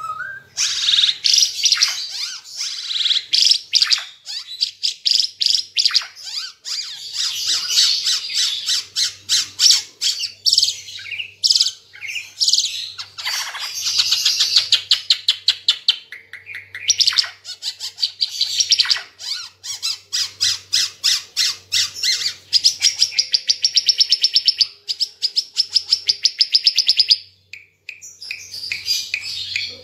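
Red-eyed Ara Timor songbird in full, loud song: long runs of fast, high chattering trills and rapidly repeated notes, pausing briefly twice.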